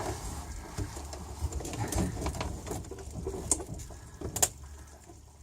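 Scattered light clicks and knocks of hands and test leads being worked around car batteries during a voltage check, over a faint low rumble.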